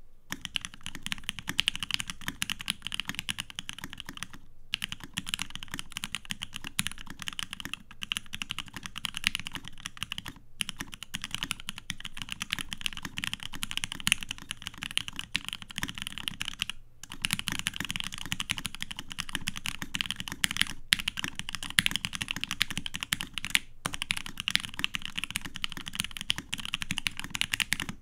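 Fast, continuous typing on a Savage65 custom mechanical keyboard with a POM plate, lubed Dogikon linear switches and PBT keycaps. It is a dense stream of keystroke clacks with a few short pauses.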